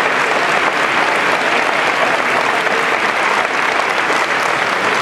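Audience applauding steadily, a dense continuous clapping from a large crowd in a big hall.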